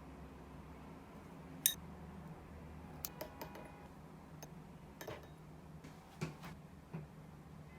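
Scattered light clicks and taps of kitchenware being handled, the sharpest about two seconds in, over a low steady room hum.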